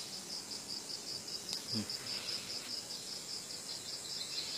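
Night insects chirping in a steady, high-pitched pulsing trill, about four to five pulses a second.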